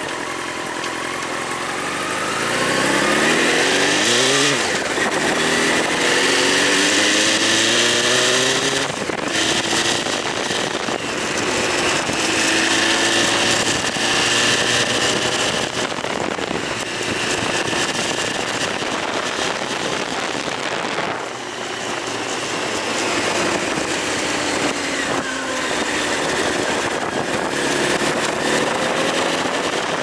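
Honda CBR929RR Fireblade's inline-four engine under way, revs climbing and dropping back at each gear change as it accelerates, then holding a steadier note. The throttle eases briefly around twenty seconds in and the revs rise again near the end, with wind rushing over the microphone throughout.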